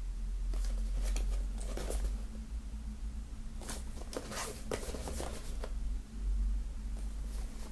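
Hands handling and turning a cardboard CD box set: soft rustles, scrapes and light taps of card against fingers, in two short flurries, over a steady low hum.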